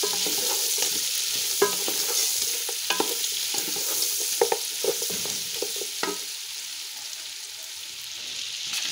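Rabbit meat and sliced onions sizzling as they fry in a metal pot, stirred with a wooden spoon. The spoon scrapes and knocks against the pot a number of times during the first six seconds or so, over a steady sizzle that eases slightly toward the end.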